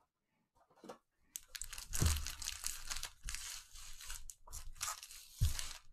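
Crinkling, crackling rustle of foil-wrapped trading-card packs handled in gloved hands as the stack is lifted out of its box, with two soft thuds, about two seconds in and near the end.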